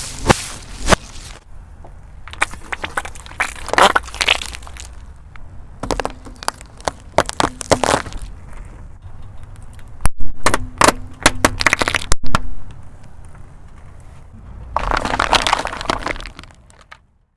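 Car tyre rolling over and crushing brittle objects: repeated clusters of sharp cracks and crunches, coming in bursts every few seconds, over the low rumble of the car.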